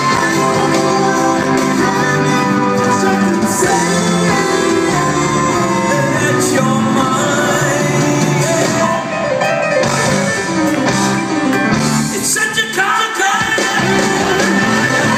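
Live rock band playing loud through the PA, with a lead singer over electric guitar and band. The music thins briefly near the end before the guitar chords come back in.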